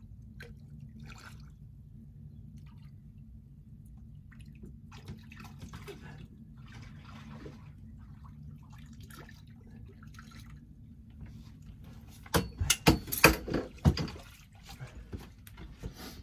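Small drips and splashes of water over a low steady rumble. About twelve seconds in comes a burst of loud sharp splashes and knocks lasting about two seconds, then a few smaller ones.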